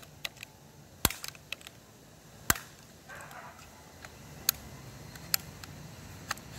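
A BB gun giving a string of sharp clicks and snaps at irregular intervals, the loudest about one and two and a half seconds in.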